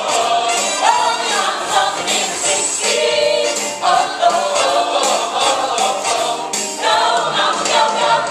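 Live stage musical number: the cast singing together over the band's upbeat 1960s-style pop accompaniment.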